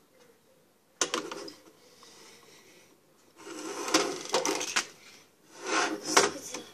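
Plastic Pie Face game: its spring-loaded hand snaps up with a sudden clack about a second in, and cream hits the player's face. After that come rattling and knocking of the plastic game frame as it is handled, loudest near the end.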